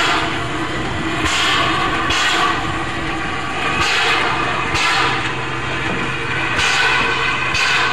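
Narrow-gauge steam locomotive getting under way: sharp exhaust chuffs about a second apart, unevenly spaced. A low steady hum joins about five seconds in.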